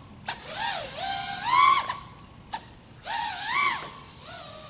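FPV racing quad's brushless motors (iFlight XING 2207 1800kv) and props whining, the pitch rising and falling several times as the throttle is punched and eased during flips and rolls. Two short sharp clicks are also heard.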